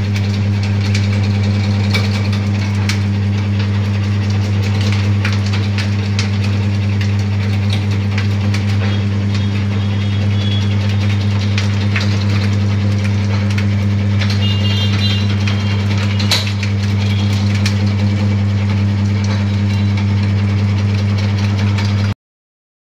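Electric supari (areca nut) cutting machine running with a steady hum, with many small clicks of sliced nut pieces dropping onto its metal output tray. The sound cuts off suddenly near the end.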